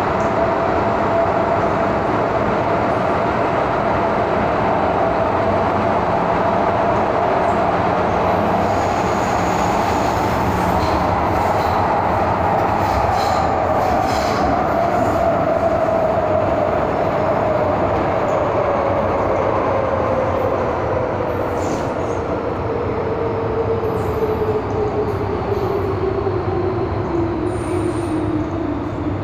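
Interior of a Hong Kong MTR M-Train (Metro-Cammell EMU) car under way: the rumble of wheels on rail with a steady drive whine that, about two-thirds of the way in, starts falling steadily in pitch as the train slows. A few brief faint high squeaks are heard along the way.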